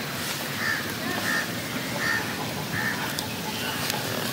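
Waterfowl calling: a handful of short calls, spaced under a second apart, over a steady background hiss.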